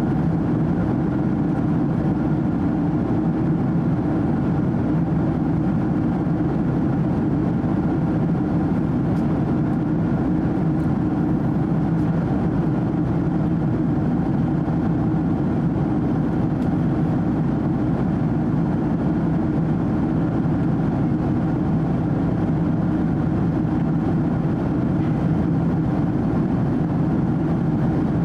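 Steady cabin noise inside a Boeing 767-300 jet airliner in flight: the low drone of its twin jet engines blended with the rush of air past the fuselage, even and unchanging.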